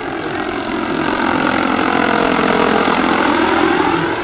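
Turbine-powered RC scale Bell AH-1 Cobra model helicopter in flight, its turbine whine and rotor noise running steadily. It grows louder as the model passes close and eases off near the end.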